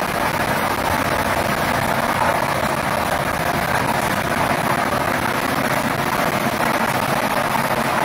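Lottery draw machine running: a steady rushing blower noise with no breaks.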